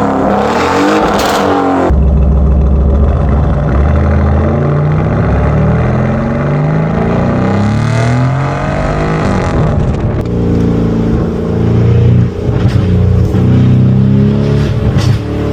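Lamborghini Urus SE's twin-turbo V8 running through a full Novitec exhaust system, revving and accelerating. The pitch rises and falls several times, with a short drop in level about twelve seconds in.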